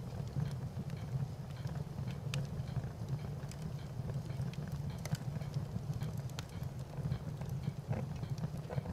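Wood fire crackling: a steady low rumble of flames with scattered, irregular sharp pops and snaps.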